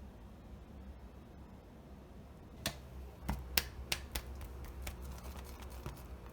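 A quick, irregular series of sharp clicks and taps starting about two and a half seconds in, over a faint low hum.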